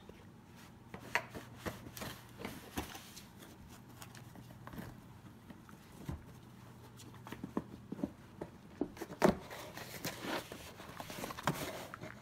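A Shiba Inu pawing and scratching at a cardboard shipping box, its claws scraping and tapping the cardboard in irregular strokes, with a sharper knock about nine seconds in.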